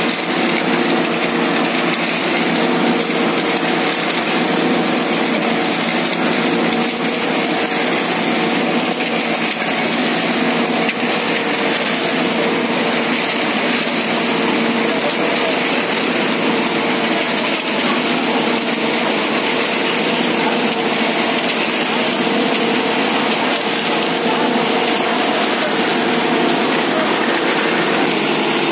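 Ajax Fiori Argo 2000 self-loading concrete mixer running with a steady hum from its engine and turning drum, while wet concrete with gravel rasps and slides down its steel discharge chute.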